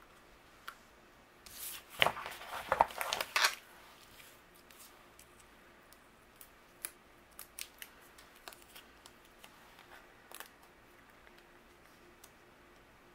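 Crisp paper and sticker handling: a quick run of sharp rustles and snaps about two seconds in as a sticker and foam squares are peeled and pressed down, then light scattered ticks and taps of fingers on paper.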